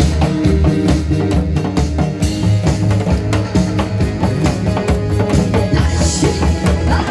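Upbeat band music with a steady drum-kit beat and bass: an instrumental passage between sung lines of a song.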